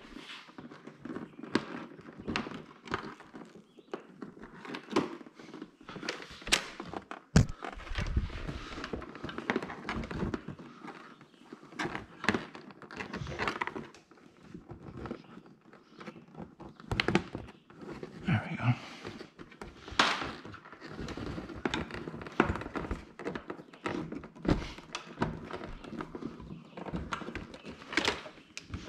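Scattered knocks, thunks and rustles of hands pulling wires through and around the plastic fender and cage of a side-by-side, with one sharper knock about seven seconds in.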